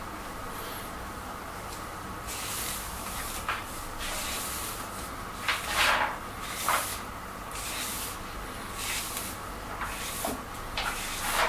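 Hair being styled: a run of short hissing, rustling strokes, roughly one a second, with a few light clicks.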